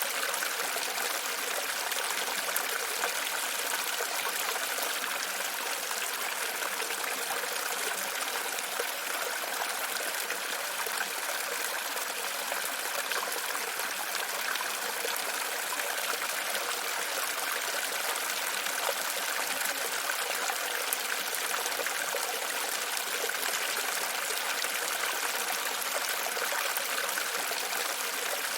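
Running water trickling steadily and without a break.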